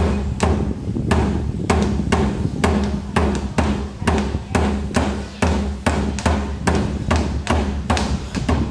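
Background music with a steady drum beat, about two to three hits a second, over a deep bass.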